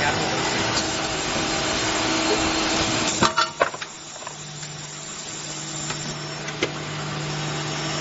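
Automatic padlock-shell drilling machine running: a steady motor hum under dense machining noise, with a cluster of sharp metal clanks a little past three seconds in, after which the running is quieter.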